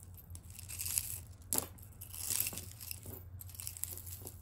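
Hands rustling and crinkling through mixed jewelry while picking up a bangle, with a few sharp clicks, the loudest about a second and a half in.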